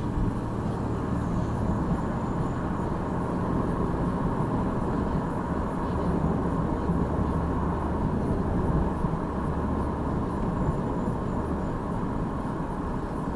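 A 2002 Jeep Liberty's freshly swapped-in 3.7 L V6 running steadily while driving, with an even engine hum and road noise. The engine runs smoothly with no check engine light.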